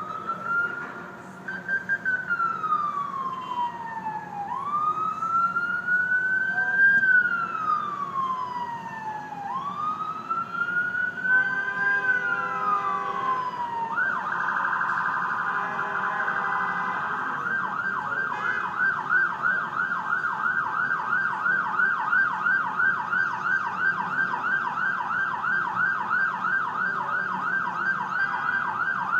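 Ambulance's electronic siren sounding a slow wail, rising and falling about every five seconds, then switching about halfway through to a fast yelp.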